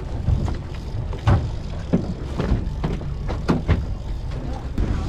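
Steady low rumble of the boat on the water, with irregular knocks and thumps about every half second.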